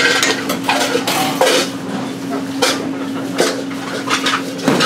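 Dishes and metal utensils clinking and knocking in a run of separate strikes, over a steady low hum.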